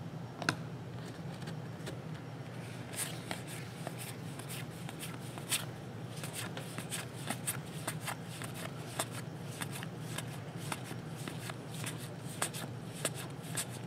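A stack of Topps trading cards being thumbed through by hand, one card at a time, in quick irregular flicks and clicks that come thicker from about three seconds in. A steady low hum runs underneath.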